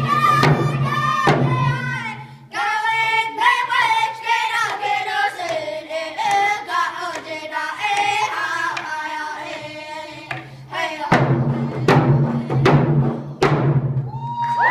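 Children singing a hand-drum song in high voices while beating round frame hand drums with sticks at about two strokes a second. The drums drop out about two seconds in, leaving the voices alone, and come back in about eleven seconds in.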